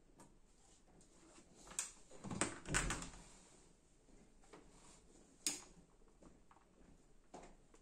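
Handling noise from hands moving cables and parts on a tabletop: a few light clicks, a short rustling knock about two and a half seconds in, and a sharp click about five and a half seconds in.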